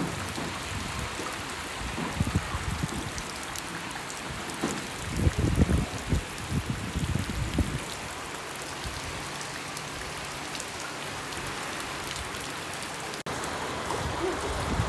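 Heavy rain falling on standing floodwater, a steady hiss of drops striking the water's surface. Bursts of low rumble come in about five to seven seconds in.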